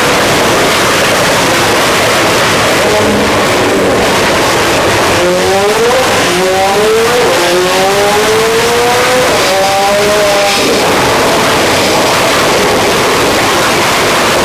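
Tuned McLaren 765LT's twin-turbo V8 at full throttle on a chassis dynamometer. A loud, steady rush runs throughout, and the engine note climbs in pitch, dipping twice, then climbs again until it stops about ten and a half seconds in.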